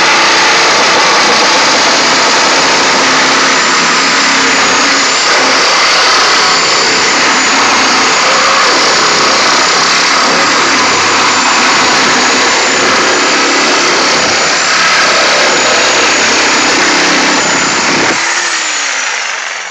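Skil reciprocating saw fitted with a wood-cutting blade, sawing through a car's metal roof pillar with a loud, steady rasp. About 18 seconds in the trigger is released and the motor winds down with a falling whine.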